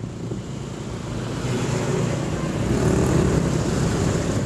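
Riding on a motorcycle: its engine running under wind and road noise, getting louder from about a second in as traffic passes close by.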